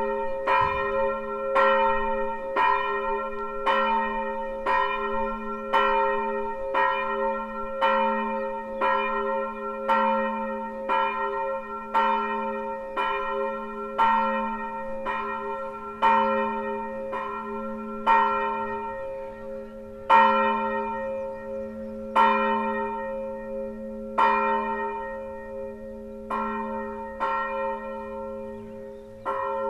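A single swinging church bell, bell 2, tuned to A-sharp (Ais1), rung on its own. Its clapper strikes about once a second, then about every two seconds in the last third as the ringing thins out and grows quieter, each stroke leaving a long, steady hum.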